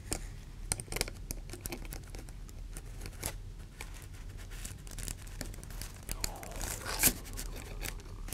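Crinkly tissue paper rustling under hands and a breadboard, with small sharp clicks from pliers and a binding post as the post's nut is being tightened. The rustling thickens near the end, with one louder click about seven seconds in.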